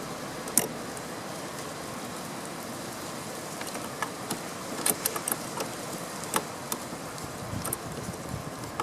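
Scattered light clicks and taps from hands working at a van's negative battery cable terminal, over a steady background hiss. The clicks come singly at first, then several close together from about four seconds in.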